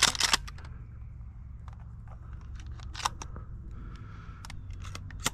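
Sharp clicks and crunches of someone moving through dry field cover, a burst of them at the start and a few scattered after.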